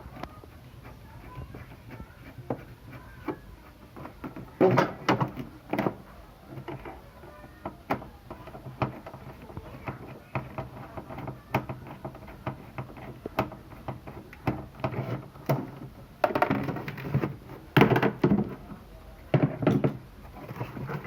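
Clicks, knocks and rattles of screws being undone and a refrigerator's inner panel being handled, with louder clattering twice.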